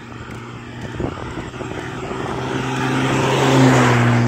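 An engine droning at a steady pitch, growing steadily louder as it approaches.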